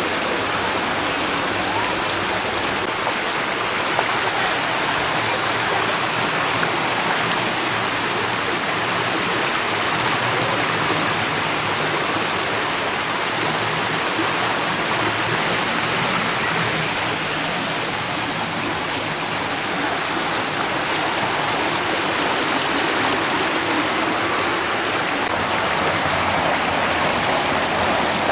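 Water of a shallow park stream running steadily, a continuous babble with no breaks.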